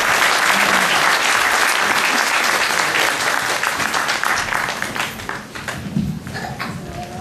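Audience applause, a dense steady clapping that dies away over the last few seconds into scattered separate claps.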